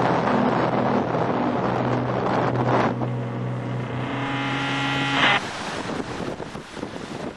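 Background music holding a sustained droning chord, with a rising whoosh about three seconds in. It cuts off abruptly a little over five seconds in, leaving wind buffeting the microphone and surf washing.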